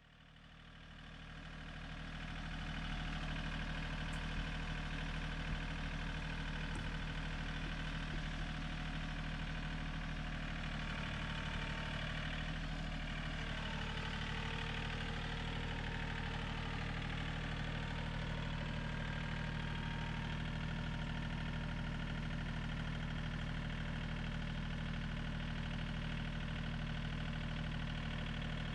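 John Deere tractor engine idling steadily. It swells up over the first few seconds, then holds an even, unchanging note.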